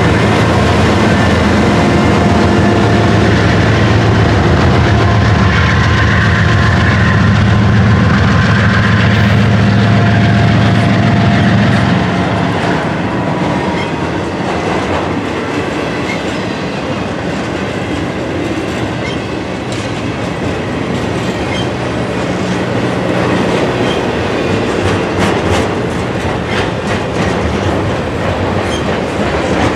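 Norfolk Southern intermodal freight train passing close by: a trailing diesel locomotive's engine hums steadily for about the first twelve seconds, then trailer-carrying flatcars roll past with steady wheel-on-rail noise and clickety-clack over the rail joints.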